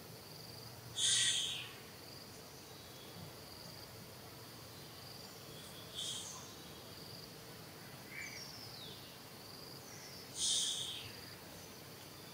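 Insects buzzing in a steady, high pulsing drone, with three short, loud high-pitched calls about five seconds apart and a brief falling whistle between the second and third.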